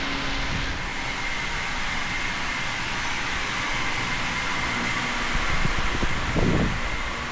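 Steady hum and hiss of outdoor street background noise, with a faint constant high-pitched tone and a short low rumble about six and a half seconds in.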